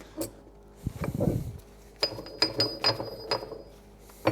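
Steel parts of a carrier-bearing puller and differential shaft clanking and clinking as they are turned over and fitted together by hand. A duller knock comes about a second in, then a run of quick, ringing metal clicks.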